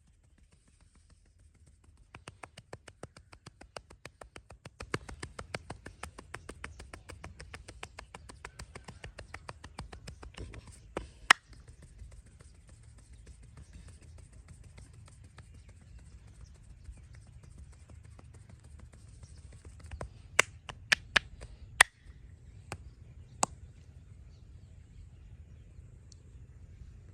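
Massage hands striking the body in a fast, even tapping rhythm, several strikes a second, that stops about ten seconds in. Then one loud sharp crack, and later a quick run of four or five loud cracks with two more just after.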